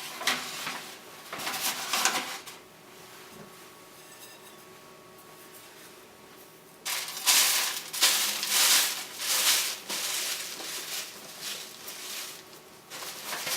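Lavender rustling and crackling as it is stuffed by hand into a copper still column, in bursts with a pause in the middle. The louder bursts come from about seven seconds in.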